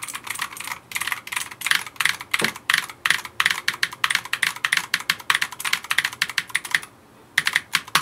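Fast typing on a 1st Player MK6 Bullet Hunter mechanical keyboard with Outemu blue switches: a dense run of sharp, very clicky keystrokes. The typing breaks off briefly near the end, then comes a last short flurry.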